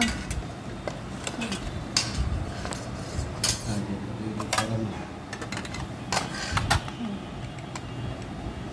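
Steel ladle clinking against aluminium cooking pots and a pan: a string of sharp, separate clinks spread across a few seconds.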